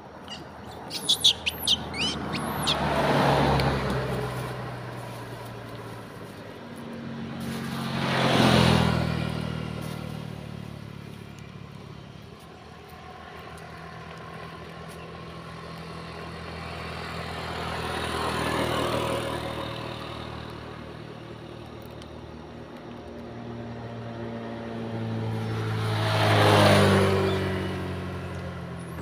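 Motor vehicles passing one at a time on the road, four in turn, each engine and tyre noise swelling up and fading away over a few seconds. A few brief high-pitched calls sound about a second in.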